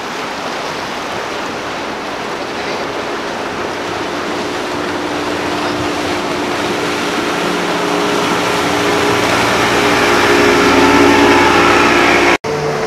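Center-console boat's outboard engine running at planing speed over a steady rush of water and wind. The engine hum grows louder over the second half, then breaks off suddenly near the end.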